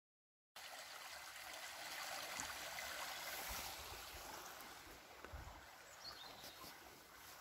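Steady rushing of flowing water, with a few soft low thumps in the middle. It starts abruptly about half a second in.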